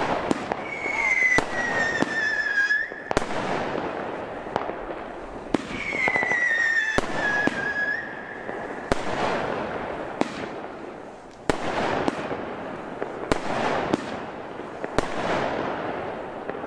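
FOXX 'Die Freak' firework battery firing: a string of sharp shot reports and crackling star bursts, with two whistles, each about two seconds long and falling slightly in pitch, about a second in and about six seconds in.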